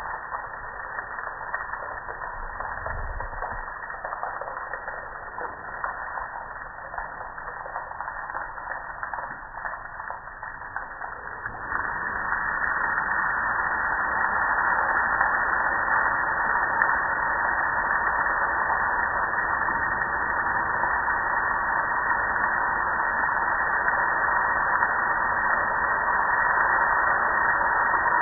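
Soapy water spraying and running down a gas grill, a steady splashing hiss that becomes louder and more even about twelve seconds in.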